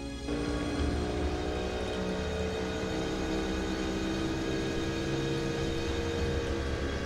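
Motorboat engine running steadily at speed. It cuts in suddenly a fraction of a second in.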